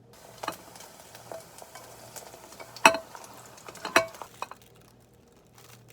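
Utensil stirring and scraping in a pan or bowl, with two sharper clinks about three and four seconds in.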